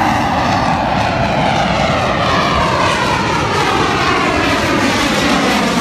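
Fighter jet flying low overhead: loud, steady jet engine noise with a pitch that sweeps downward as it passes.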